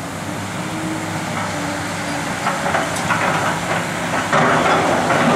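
Hydraulic excavator running steadily as it works a demolition site; about four seconds in, a louder spell of crunching and clattering as the bucket works into the debris.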